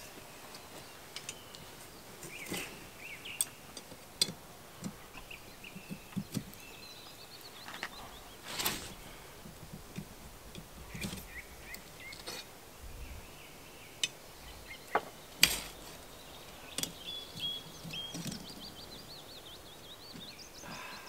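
Scattered sharp knocks and clinks from an iron campfire pot-hanger rod being worked into the ground, a few single strikes spread apart, the loudest about halfway through and again later on. Birds chirp throughout, with a trill near the end.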